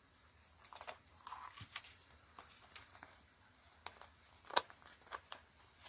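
Paper stickers and a sticker sheet being handled: a scatter of soft crinkles and light taps as a sticker is worked free of its sheet and pressed onto a journal page, the sharpest tap about four and a half seconds in.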